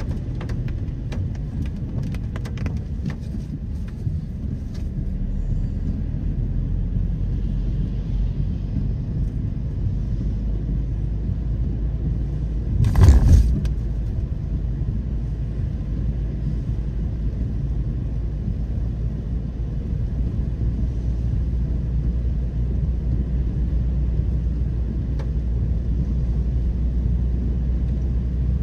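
Car cabin noise while driving on wet roads: a steady low rumble with a hiss of tyres on the wet surface. There are a few sharp clicks in the first few seconds and a brief loud burst about 13 seconds in.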